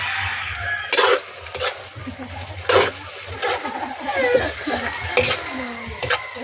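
Metal ladle scraping and knocking against a wok while stirring chunks of meat and taro in sauce, several sharp scrapes spread a second or so apart.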